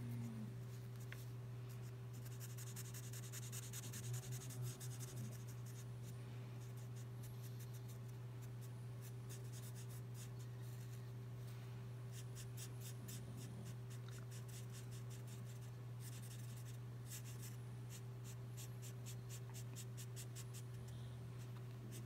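Twin-tip marker nib scratching across paper in spells of rapid back-and-forth colouring strokes, faint, over a steady low hum.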